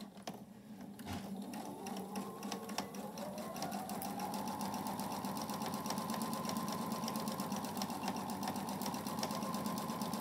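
Computerized sewing machine stitching the second pass of a French seam: it starts slowly, speeds up over the first few seconds, then runs at a steady speed.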